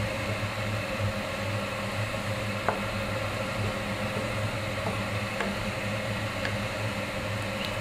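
Tomato and squid sauce simmering in a non-stick frying pan while it is stirred with a wooden spatula, with a few faint taps of the spatula against the pan, over a steady hum and hiss.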